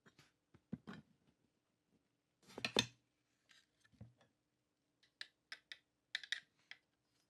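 Light clicks and taps of small parts of a 1:18 scale model car being handled, with a louder short clatter about two and a half seconds in and a quick run of sharp clicks near the end.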